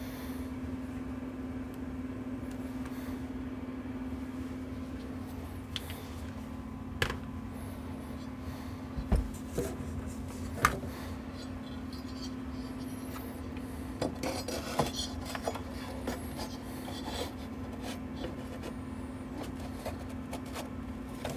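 Scattered clicks, knocks and rubbing as an amplifier's metal chassis and parts are handled on a workbench, with a cluster of small clicks about two-thirds of the way in, over a steady low hum.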